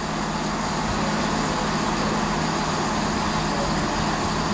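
Class 170 Turbostar diesel multiple unit's underfloor diesel engines running steadily at a station platform, a constant low hum.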